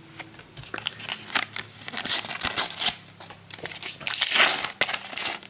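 Paper wrapper of a Panini sticker packet crinkling and rustling in the hands as it is torn open and crumpled, in irregular bursts, loudest about two seconds in and again near the end.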